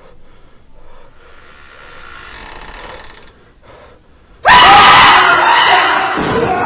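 A sudden, loud scream starts about four and a half seconds in, after a quiet stretch, and slowly fades.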